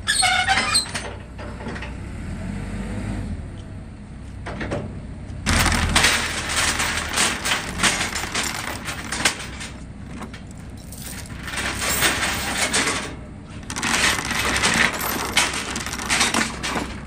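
Steel tie-down chains rattling and clinking against the trailer deck and reel as lever chain binders are released and the chains pulled loose, in several stretches of jingling handling with scattered clanks.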